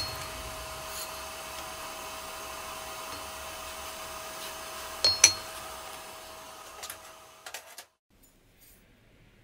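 Steady hum of a running blower motor with a fixed whine, with sharp ringing clinks of steel against steel about a second in and twice in quick succession around five seconds. The hum fades away and cuts off near the end.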